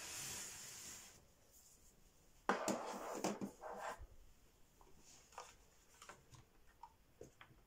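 Handling noises from a corded gaming mouse and a keyboard in a foam-lined case: a soft rustle at first, then a louder rustling scrape about two and a half seconds in, followed by scattered light clicks and taps.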